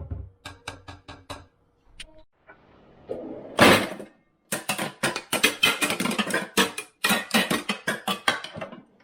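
Drumstick striking household objects: about six quick taps on something that rings with a steady pitch, a louder noisy hit lasting about half a second around three and a half seconds in, then a long run of rapid taps.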